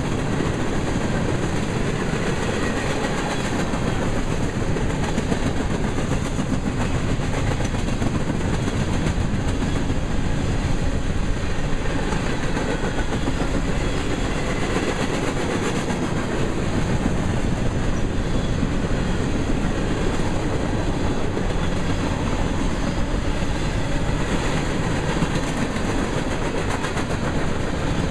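Grain train's covered hopper cars rolling past at speed: a steady rumble with the wheels clattering over the rails.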